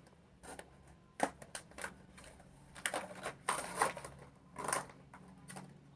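Packaging being handled and opened: irregular crinkling, rustling and small clicks, with a few longer rustles near the middle and a faint steady hum underneath.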